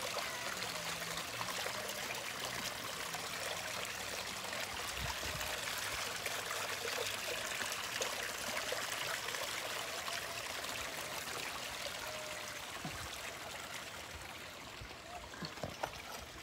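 A steady rushing, hissing noise, like running water, that eases off a little near the end.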